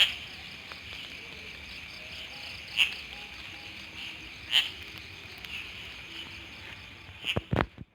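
Night insects, crickets, chirring steadily in a rice paddy, with a louder chirp every couple of seconds. Near the end there are a few sharp knocks, then the sound cuts off.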